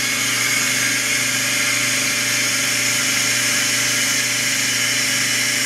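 Aquatec 220 psi pump running steadily, a constant hum under an even hiss of water spraying under pressure into a plastic bucket.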